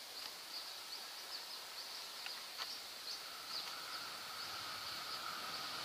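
Repeated short high bird chirps over a faint outdoor hush, while the noise of an approaching diesel-hauled passenger train slowly grows. A steady high tone joins about halfway through.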